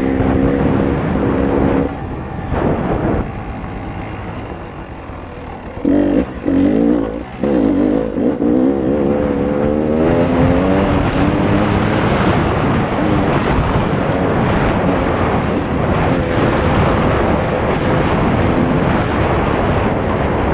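Beta RR 300 two-stroke enduro motorcycle engine under way. It revs, drops back to a lower, quieter run for a few seconds, gives a few sharp bursts of throttle, then climbs in pitch as the bike accelerates and holds a loud, even run.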